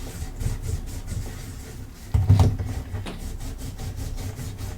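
A sanded plastic Rubik's cube being wiped clean of sanding dust with rubbing alcohol: soft repeated rubbing strokes, with a louder knock of the cube being handled about two seconds in and a small click a second later.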